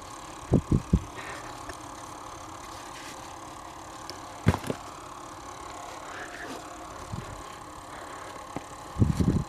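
Short low knocks and scuffs of someone shifting about and handling dirt and rock: three in the first second, two around the middle and a quick cluster near the end, over a steady low hum.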